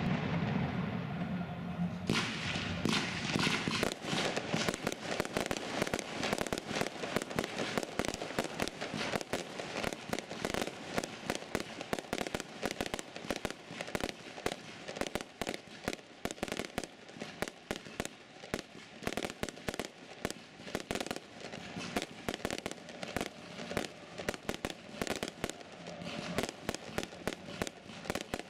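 Fireworks display: a rapid, continuous string of launches and aerial bursts popping and crackling many times a second. The loudest, deepest part comes in the first two seconds.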